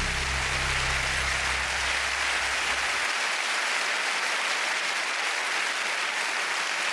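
Large audience applauding steadily, with a low bass underneath that stops about three seconds in.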